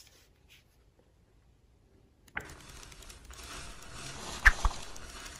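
About two seconds of near silence, then the paper pages of a hand-held flipbook riffling off a thumb: a steady fluttering rustle with a sharper click about four and a half seconds in.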